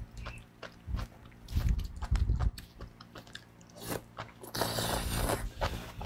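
Close-miked eating sounds: wet chewing and mouth clicks on a mouthful of enoki mushrooms, then a long slurp of the strands in the second half.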